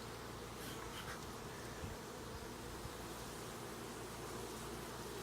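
Honeybees humming steadily around an opened hive.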